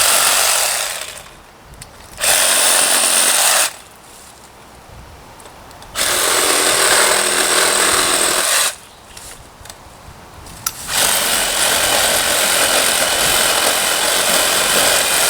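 Ryobi 18-volt cordless reciprocating saw with a pruning blade cutting through tree limbs, run in four loud bursts with the trigger released in the short pauses between them.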